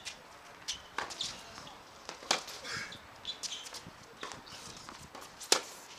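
Tennis balls being struck and bouncing on outdoor hard courts: scattered sharp knocks, the loudest about five and a half seconds in, with short high squeaks between them.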